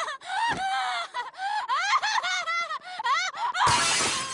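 A cartoon girl's high-pitched, drawn-out laughter, then about three and a half seconds in a window shattering with a burst of breaking glass.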